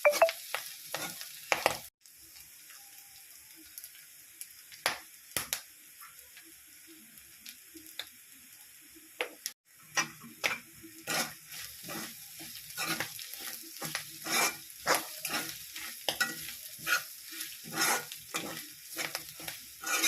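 Clam meat frying in a pan with a steady sizzle, stirred in quick strokes that scrape against the pan. From about two to nine seconds in there is mostly sizzling with only a few strokes, then the stirring picks up again at one or two strokes a second.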